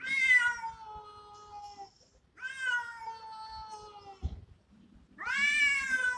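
Cats caterwauling at each other in a territorial standoff: three long, drawn-out yowls, each sliding slowly down in pitch, the first at the start, the next about two and a half seconds in, and the last near the end.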